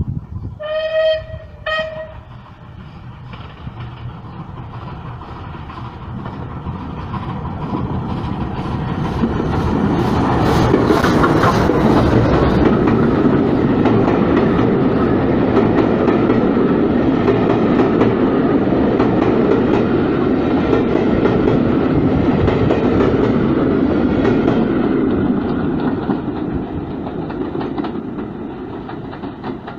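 Steam whistle of SR Merchant Navy Pacific No. 35006, one long blast followed by a short one. Then the locomotive and its coaches pass close by, the rolling wheels and rail clatter growing loud through the middle and fading as the train moves away.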